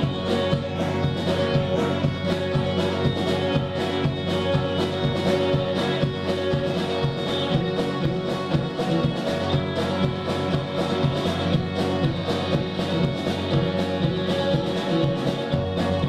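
A live band playing an instrumental passage with a steady beat.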